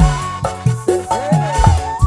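Live dangdut-style band playing an instrumental passage with no singing: kendang hand drums strike a fill of about four low strokes with bending pitch, over bass and keyboard, with a cymbal wash at the start and a bamboo flute (suling) melody.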